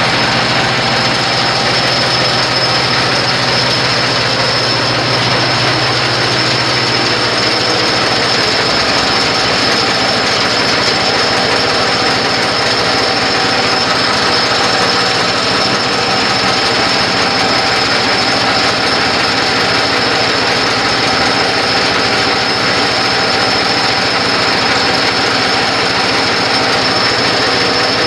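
Mini stone crusher machine running with a steady, loud, dense rattling din and a high whine held throughout; a low engine hum underneath fades about seven seconds in.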